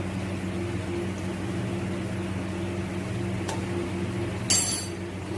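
A steady low kitchen hum, with a faint tick about three and a half seconds in and a single ringing clink of a utensil near the end.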